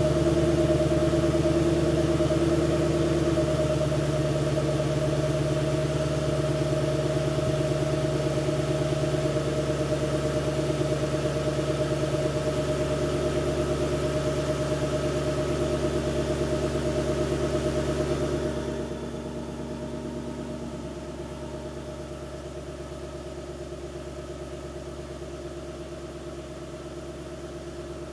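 2006 Mustang GT's 4.6-litre V8 idling steadily through its dual exhaust after a winter start-up. About two-thirds of the way through, the sound drops noticeably quieter and stays there.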